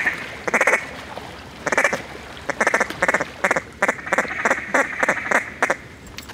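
Mallard-style duck quacking: a couple of separate loud quacks, then a fast run of about a dozen quacks in the second half, calling ducks in over flooded timber decoys.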